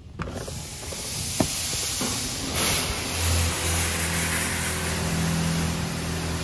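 Washworld Razor touchless car wash arch spraying water and foam onto the car, a dense hiss that starts suddenly, heard from inside the car through an open window. A steady low hum from the wash machinery joins about three seconds in.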